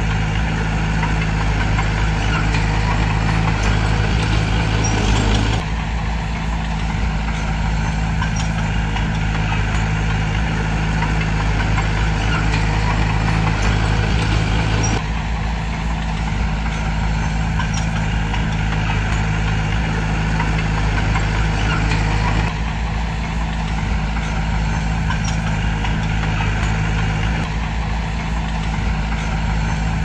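Diesel engine of heavy earthmoving machinery running steadily, its note changing abruptly three times.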